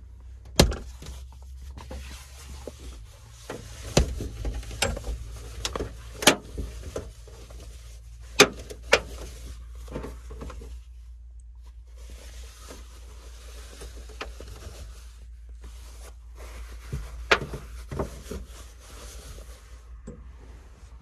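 A cloth window shade being handled and pulled down from the rear window inside a small van: rustling with many sharp clicks and knocks, most of them in the first half and a few more about 17 seconds in.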